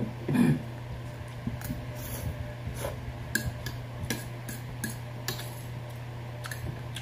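A metal fork clinking and scraping on a ceramic plate of noodles in scattered short clicks, over a steady low hum. A brief louder low sound comes about a third of a second in.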